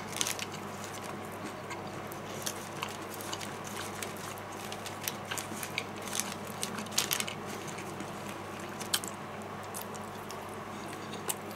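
Small crinkles and clicks of a paper wrapper as fingers scrape and pinch up leftover food from it, with soft eating sounds.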